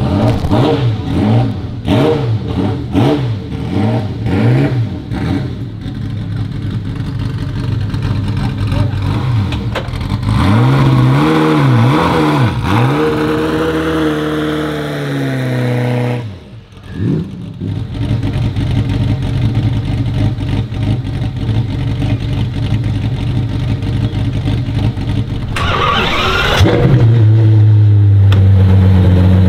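Car engines revving: a run of short blips rising and falling in pitch, then a longer rev that glides down. After that an engine runs steadily, and it comes in louder and lower near the end.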